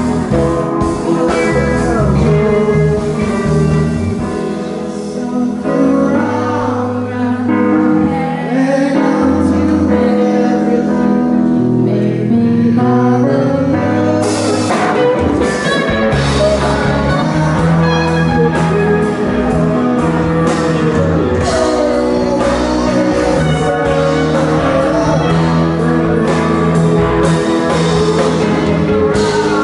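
Live rock band playing: electric guitars, bass, keyboard and drum kit, with a sung vocal over them. The drums and cymbals grow busier about halfway through.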